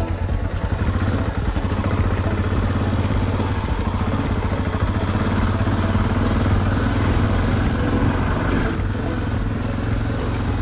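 Yamaha Ténéré motorcycle engine running steadily as the bike is ridden along a rough off-road track.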